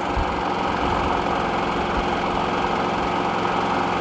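Harbor Freight Predator 9500 inverter generator's 459cc gasoline engine idling steadily at light load, a constant engine hum.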